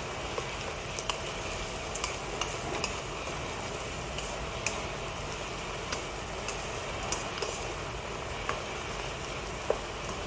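Sliced pork balls, green chillies and spring onion sizzling in a non-stick wok as they are stir-fried with a wooden spatula: a steady sizzle with scattered light clicks and scrapes of the spatula against the pan.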